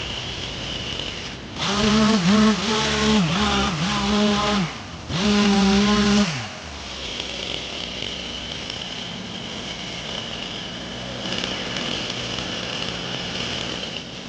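Two-stroke chainsaw running at full throttle in two bursts, its pitch dipping repeatedly as the chain bogs into wood during cutting. After the second burst the throttle is let off and the sound drops back to a quieter steady level.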